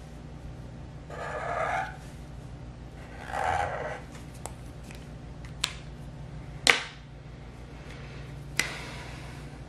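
Black permanent marker drawn across paper in two scratchy strokes of about a second each. Then several sharp plastic clicks, the loudest about two-thirds of the way in, as markers are handled, set down and picked up.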